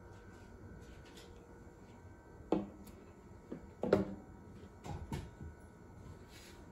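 A few short knocks and clunks, like things being handled or set down, over quiet room tone; the loudest comes about four seconds in.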